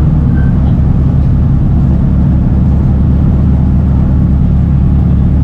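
Race car engine and road noise heard inside the stripped, roll-caged cabin of a Honda Civic race car while driving: a loud, steady low rumble.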